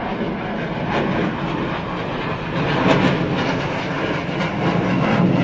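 Engine noise of a military jet flying overhead at an air show: a steady, noisy sound that grows louder about halfway through.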